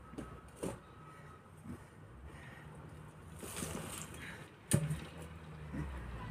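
A shovel working loose soil: scraping and earth sliding, with a light knock early on and one sharp, loud knock about three-quarters of the way through.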